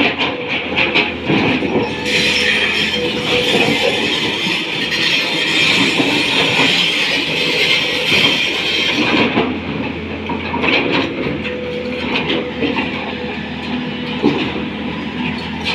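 Tata Hitachi 200 excavator at work: its engine runs steadily, with a loud hiss rising over it from about two seconds in and falling away after about nine seconds.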